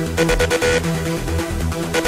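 Electronic dance music with a steady beat and pulsing bass.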